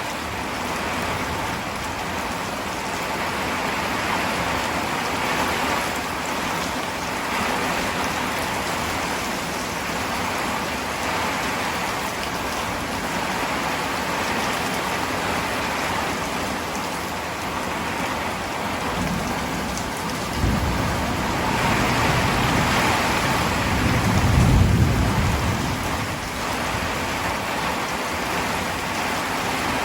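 Heavy rain falling steadily, with a low rumble of thunder that builds and fades about two-thirds of the way through.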